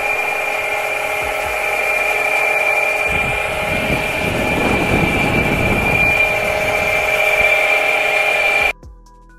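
Masonry brick saw running with a steady high whine as its blade cuts through a brick, with a coarser grinding from about three seconds in until about six. The sound cuts off abruptly near the end.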